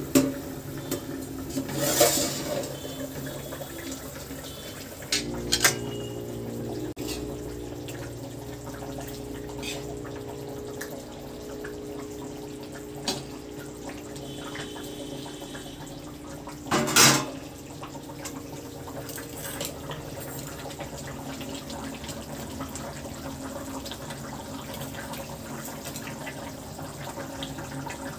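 Fish curry simmering and bubbling in a steel pan, with a few sharp metal clanks of the lid and slotted spoon against the pan, the loudest about 17 seconds in.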